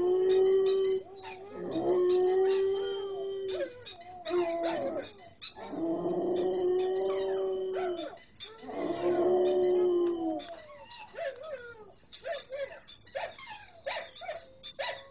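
A Samoyed howling back at another Samoyed: about five long, steady-pitched howls in a row, each broken off by a short pause. After about ten seconds the long howls give way to shorter, broken dog sounds.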